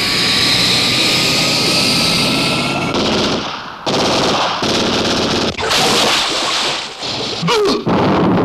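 Film action sound effects: loud, dense rapid gunfire in several stretches broken by short gaps, with a faint rising whine through the first three seconds.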